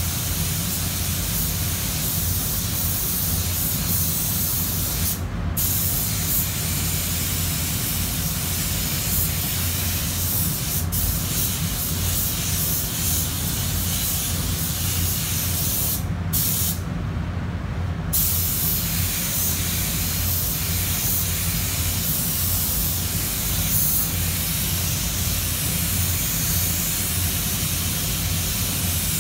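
Air spray gun hissing steadily while spraying base-coat paint. The hiss cuts out briefly about five seconds in, and twice more around sixteen to eighteen seconds in, as the trigger is let go. A low steady hum runs underneath.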